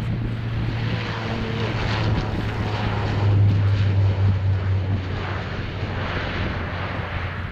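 Bombardier DHC-8-402 Q400 turboprop airliner on its takeoff roll, its two Pratt & Whitney PW150A engines at takeoff power. It makes a steady low propeller drone over a rushing hiss, loudest about three to four seconds in.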